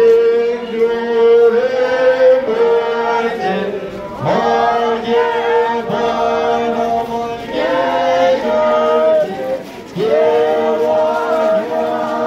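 A group of voices singing a slow chant in unison, in long held phrases, with new phrases beginning about four and ten seconds in.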